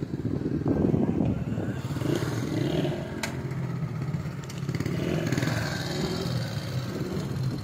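Small motorcycle engine running steadily at low revs, with one sharp click about three seconds in.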